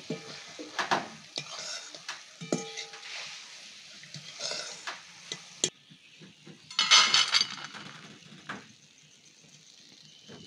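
A slotted metal ladle scraping and clinking against an iron karahi as fried boondi are stirred and scooped out of sizzling oil. About seven seconds in comes a short, loud clatter as the boondi are tipped out onto a steel plate.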